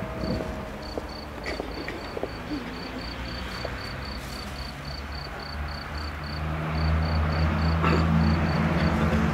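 A cricket chirping steadily, about four to five chirps a second. A low steady hum builds up over the last few seconds, with a few light knocks.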